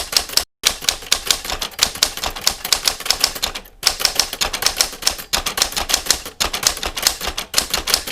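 Typewriter keys striking in a fast, even run of about six to eight strokes a second, broken by a short dead gap about half a second in and a brief pause near four seconds in.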